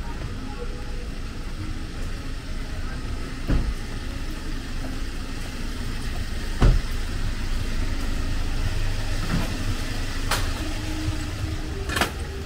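Rainy city street: a motor vehicle running close by over a steady hiss of rain, with two dull thumps about three and a half and six and a half seconds in and a couple of sharp clicks near the end.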